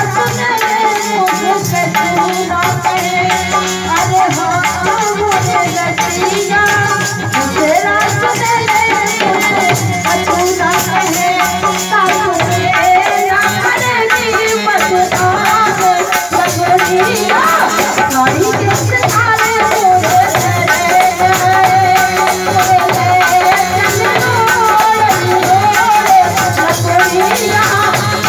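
Live Bundeli folk song: a woman's voice sings the melody over harmonium accompaniment, with a rattling percussion beat keeping steady time.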